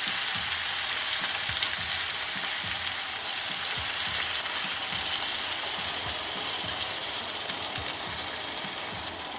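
Sliced peppers and potatoes sizzling steadily in olive oil in a frying pan, with a wooden spatula scraping and stirring them against the pan. The sizzle eases slightly near the end.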